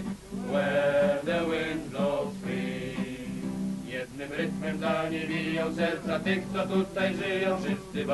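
Background music: a song sung by several voices over strummed acoustic guitar.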